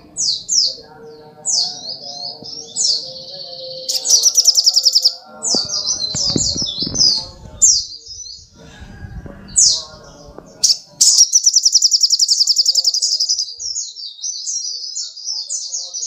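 Olive-backed sunbird singing: a quick run of high, sharply falling sweeping notes, broken by a long rapid trill about four seconds in and another, longer one at about eleven seconds.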